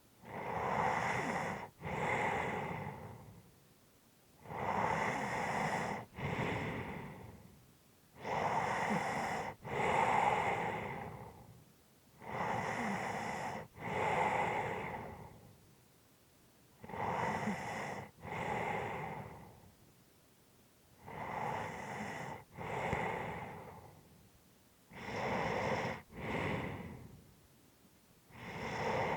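A person breathing heavily and slowly, deep in-and-out breaths at a steady rhythm of about one every four seconds. Each in-breath switches abruptly to the out-breath, followed by a short pause.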